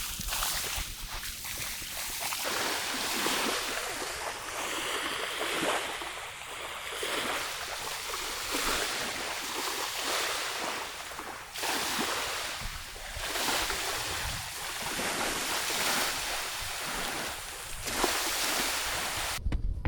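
Sea waves washing onto the shore, a steady rushing noise that surges and eases every couple of seconds, with wind in the background.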